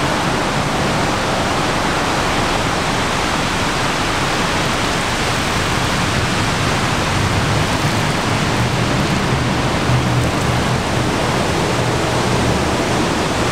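Heavy rain pouring down in a thunderstorm, a loud, steady, even hiss.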